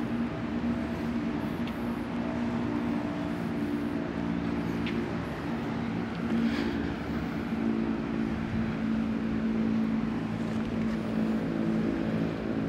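Steady drone of an engine or motor at a constant low pitch, over a haze of distant traffic noise.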